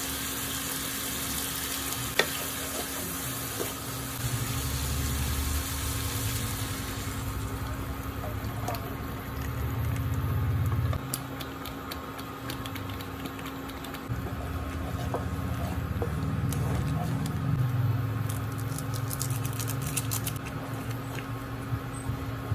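Minced meat and mushrooms sizzling in a frying pan, the sizzle dying down after about seven seconds as tomato spaghetti sauce is poured in from a pouch. This is followed by a wooden spoon stirring and clicking against the pan.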